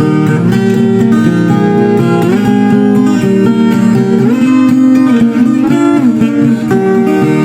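Music led by acoustic guitar playing a melody, some notes sliding up or down in pitch.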